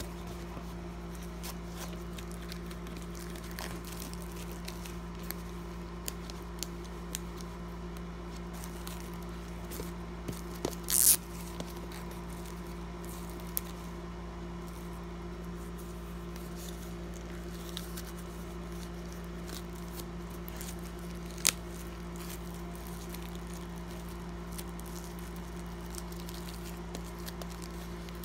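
Steady low hum with scattered soft clicks and crinkles from the clear plastic wrapping of a Blu-ray steelbook being handled. There is a short plastic crackle about 11 seconds in and a sharp click about 21 seconds in.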